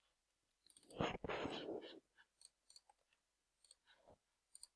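Computer keyboard typing and mouse clicks, as short scattered clicks, with a louder second-long rush of noise about a second in.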